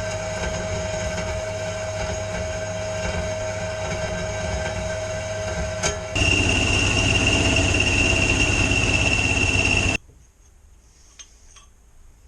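Electric arc welding on a steel crucible pot: a steady crackling buzz with a constant hum, which gets louder and higher-pitched about six seconds in and cuts off suddenly near ten seconds.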